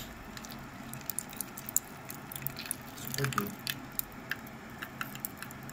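Small hand-held gas torch hissing steadily against a tin can while a knife blade scrapes and clicks on the tin, stirring Litol grease as it softens in the heat.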